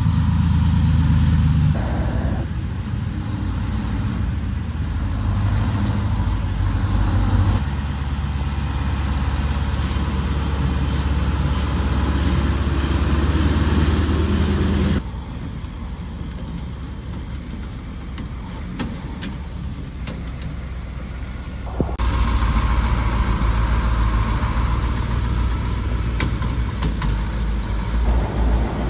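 Heavy six-wheeled military trucks with snow chains on their tyres, engines running and driving, a steady low rumble. It drops quieter for several seconds about halfway through, then comes back up.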